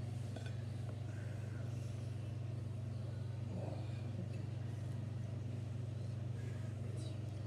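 Steady low hum, with a few faint clicks.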